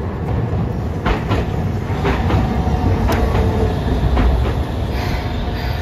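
Hiroshima Electric Railway 3800-series articulated tram passing close by on street track: a low running noise from the car, with a string of irregular sharp clacks from the wheels on the rails starting about a second in.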